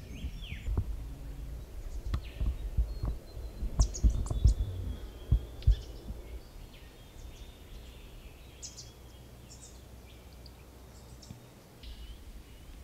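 Small birds calling with short, high chirps and brief falling notes, scattered through. Over the first half come heavy low thumps and rumbles, the loudest sounds, likely from the camera being handled or from wind on the microphone.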